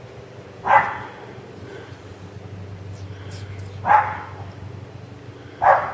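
A puppy barking three times, short sharp yaps a few seconds apart, while playing tug with a rope toy.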